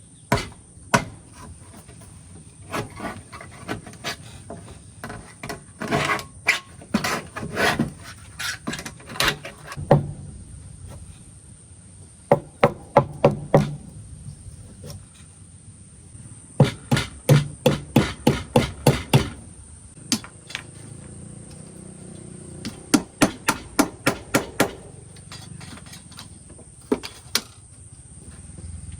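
Sharp knocks like hammering, coming in quick runs of several strokes at about four or five a second with short pauses between, over a faint steady high-pitched tone.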